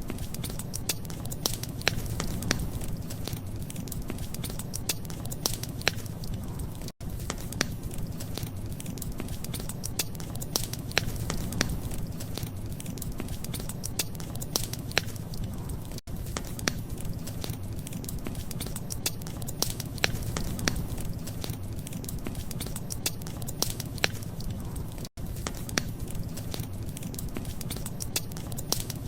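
Wood fire crackling, with frequent sharp, irregular pops over a steady low rumble. The sound drops out for an instant three times, evenly spaced.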